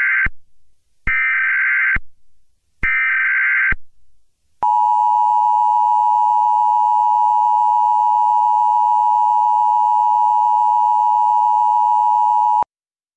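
Emergency Alert System SAME header: three short bursts of digital data tone, about a second apart, the first already under way. After a second's pause the two-tone EAS attention signal sounds steadily for about eight seconds, then cuts off sharply. The header and tone announce an emergency alert, here a tornado warning.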